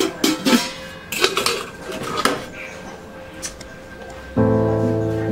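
Aluminium cooking pot and lid clattering as they are handled at a gas stove: several sharp metal clanks in the first two and a half seconds, over background music. About four seconds in, a loud sustained music chord comes in.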